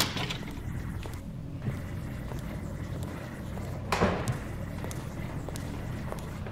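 A low, steady hum runs under a few scattered thuds and knocks: a sharp click at the very start, a smaller knock a couple of seconds in, and the loudest thud, with a brief hiss trailing after it, about four seconds in.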